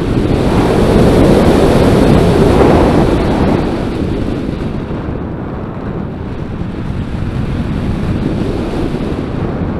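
Air rushing past the onboard camera of a radio-controlled model airplane in flight, a steady roar of wind with no clear motor note. It swells over the first three seconds and then eases.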